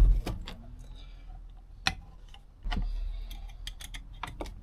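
Small sharp clicks and taps from a carburettor and tools being handled, with a low thump at the start and a short low rumble about three seconds in.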